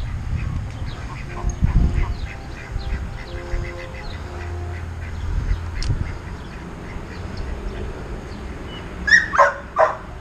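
A dog barks three times in quick succession near the end, the loudest sounds here. Before that come the low knocks and rustle of a camera tripod being carried and set up, and ducks quack in the background.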